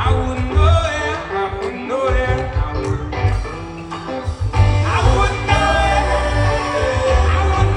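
Live rock band music with singing: a loud, full band sound with a bending vocal or lead melody over a heavy bass.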